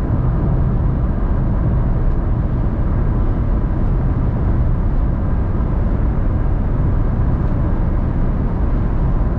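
Steady road noise of a car driving at cruising speed on a paved highway: an even low rumble of tyres and engine with no distinct events.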